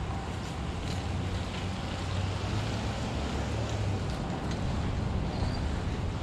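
Wind buffeting the microphone outdoors: a steady low rumble with an even rush of noise above it, and a few faint light ticks.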